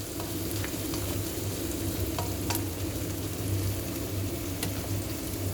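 Chopped onions sizzling in hot oil in a karahi, with a few light clicks of a utensil stirring them. The onions are at the stage of browning.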